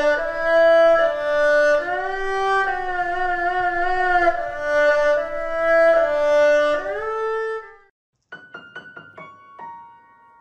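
Background music: a melody of long held notes with vibrato. It stops about eight seconds in, and after a short break a few sparse, short notes follow.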